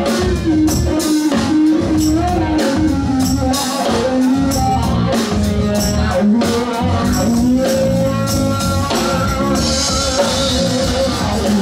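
Live band playing: a Telecaster-style electric guitar plays a lead line with bent, held notes over drums, with cymbal hits throughout.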